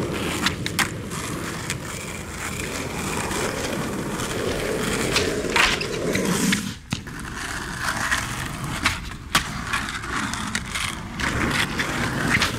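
Skateboard wheels rolling on rough asphalt, broken by several sharp clacks of the board's tail popping and the board slapping down on the pavement.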